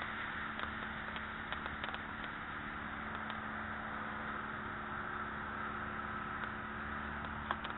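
Steady outdoor background noise, a hiss-like rush with a faint steady hum underneath and a few faint clicks.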